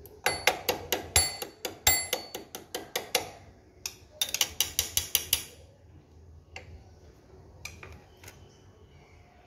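A screwdriver clicking and tapping against metal parts of the motorcycle engine's timing side: two runs of quick, ringing metallic clicks, about four a second, then a few scattered clicks near the end.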